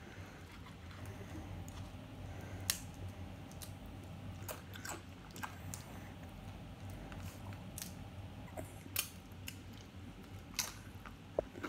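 A person eating chicken nachos by hand: chewing, with scattered sharp crunches and clicks from the tortilla chips, over a low steady hum.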